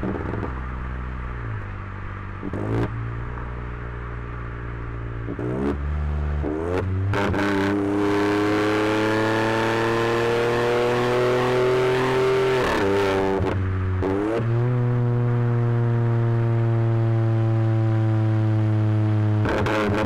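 Volkswagen Polo TSI with an aftermarket exhaust and stage 2 remap driving on the road. Its engine is quieter off the throttle for the first few seconds, with sudden jumps in revs at gear changes. Then it grows louder, the revs climbing steadily under acceleration, drop sharply at a gear change a little past the middle, and climb again.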